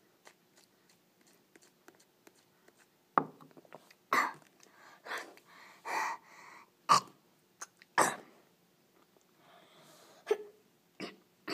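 A boy coughing and huffing in short, sudden bursts, about six in a row, his mouth burning from a hot chili. Quieter mouth sounds follow near the end.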